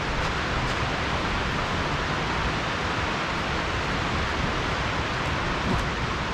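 A creek flowing with a steady, even rush of water.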